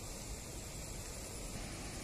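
Steady background noise: a hiss over an uneven low rumble, with no distinct event.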